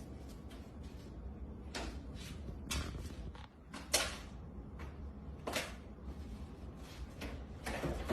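About five short knocks and scrapes spread over several seconds, the one about four seconds in the loudest, over a low steady hum.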